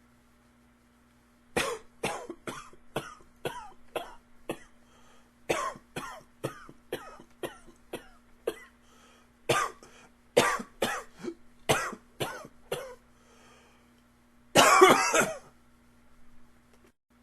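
A man coughing in fits: three runs of short coughs, about seven in each at roughly three a second, with brief pauses between them, then one longer cough lasting about a second near the end.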